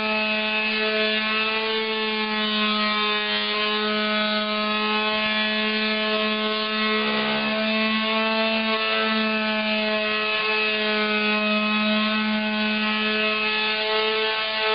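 Makita electric sander running steadily with a constant hum, its sandpaper rasping against the wooden side of an old insect drawer as it sands off the worn finish.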